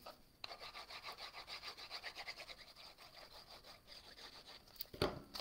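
Tip of a liquid glue bottle rubbed back and forth over cardstock, a faint scratchy scraping in quick, even strokes about five a second. A louder knock of the paper being handled comes near the end.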